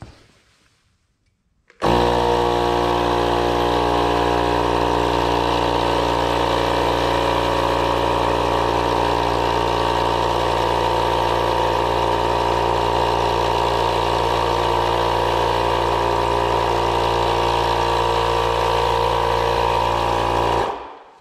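Milwaukee M12 cordless tire inflator's compressor switching on about two seconds in and running with a loud, steady hum, around 96 decibels on a phone meter, then shutting off just before the end.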